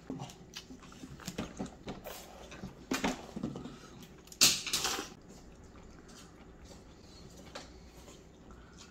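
A person eating ramen: wet slurps and chewing of noodles, with a loud slurp about four and a half seconds in, then only faint chewing.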